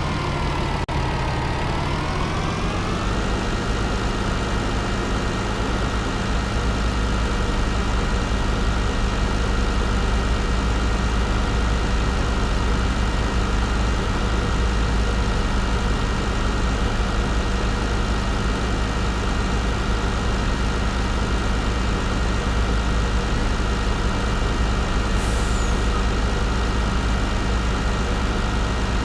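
Engine of a Kubota FS20 cutting machine running steadily at speed. At the start its pitch sags and climbs back up within about three seconds, then holds even.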